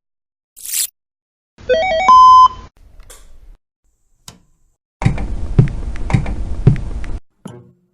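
A string of old analog TV noise effects: a short burst of static hiss, then a quick run of stepped electronic beeps ending in a loud steady tone, a click, and about two seconds of static crackle with a buzz pulsing roughly twice a second.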